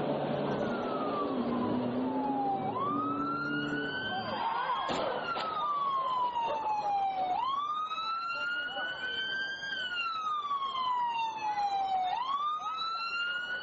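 Emergency vehicle siren in wail mode, rising and falling slowly about every four and a half seconds. Vehicle engine rumble fades out in the first few seconds, with a brief crackling noise about five seconds in.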